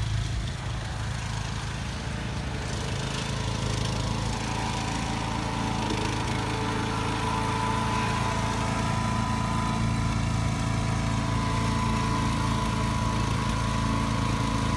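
Riding lawn tractor's small engine running steadily as it drives, with a thin whine joining a few seconds in.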